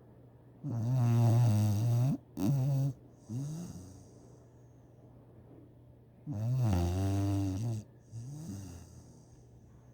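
Snoring: two loud, pitched snores about five and a half seconds apart, each followed by a shorter, quieter breath.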